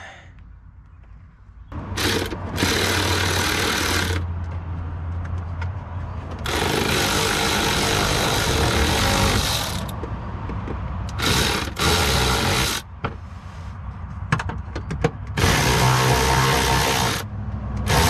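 Cordless power driver running in several stop-start bursts, a second to a few seconds each, backing out the bolts that hold the car's underbody plastic panels.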